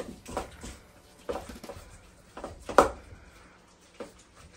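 A metal spoon stirring thick dough in a stainless steel mixing bowl, with irregular scrapes and knocks of the spoon against the bowl, the loudest a little under three seconds in.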